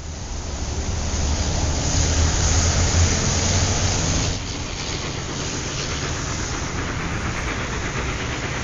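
Steady rushing, rumbling noise with a strong deep rumble that fades in at the start and eases off about four seconds in, then goes on as a steadier, slightly quieter hiss.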